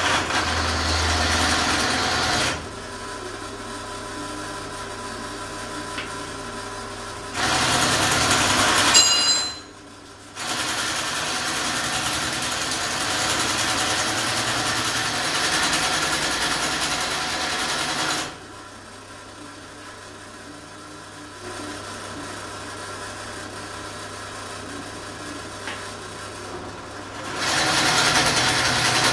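Bench drill press running as an 8 mm twist drill bores a through hole in a metal part held in a vise. The cutting comes in several loud stretches, the longest about eight seconds, with quieter running in between.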